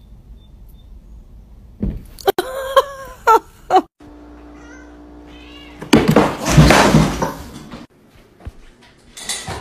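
A cat meows several times in short, rising and falling calls, starting about two seconds in, just after a soft thud. Later comes a loud, noisy sound lasting about two seconds.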